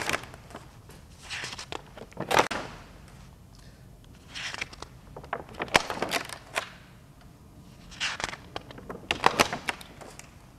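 Intermittent handling sounds: a series of short rustles and soft knocks, as sheets of paper are moved about, about eight in all with brief lulls between them.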